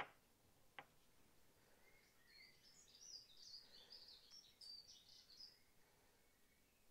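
Near silence with faint bird song: a songbird twittering for about three seconds in the middle. A sharp click right at the start and a smaller one just under a second in.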